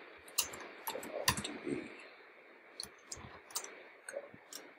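Computer keyboard keys clicking as a line of code is typed: a quick, irregular run of keystrokes in the first two seconds, then a few scattered keystrokes.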